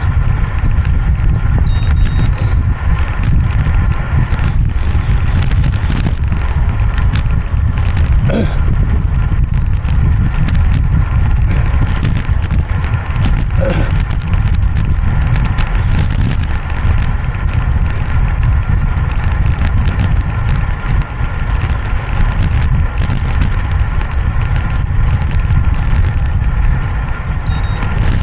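Strong, steady wind rumble on the microphone over a faint steady hum, with a couple of light clicks.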